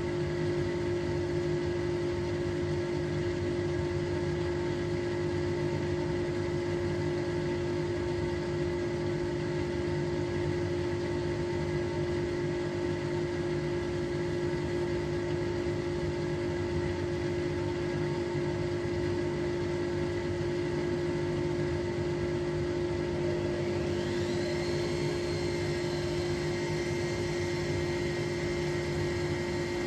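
Hotpoint Experience WMEF641 washing machine running with a steady motor hum. About 24 seconds in, a higher whine rises in pitch and then holds steady.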